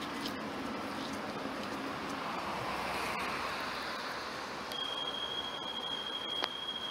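Tatra K2R.P tram standing at a stop with its doors open. About five seconds in, a steady high-pitched warning beep starts and holds: the signal that the doors are about to close. A single click follows shortly after.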